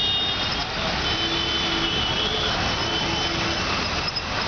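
Steady roadside traffic noise, an even rush of passing vehicles, with faint thin high tones coming and going in the middle.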